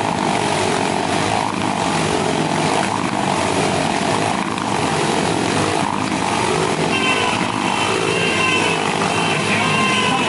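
Motorcycles riding round inside a steel-mesh globe of death, their engines revving hard and running without letup in a loud, steady drone that wavers slightly in pitch.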